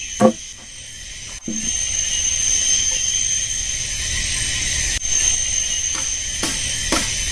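A steady, high-pitched buzzing drone that grows louder about a second and a half in, with a few sharp knocks: one near the start and two near the end.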